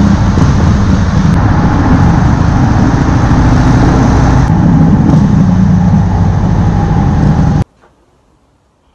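Harley-Davidson V-twin motorcycle engine running steadily at speed inside a road tunnel, with road noise. It cuts off suddenly about seven and a half seconds in.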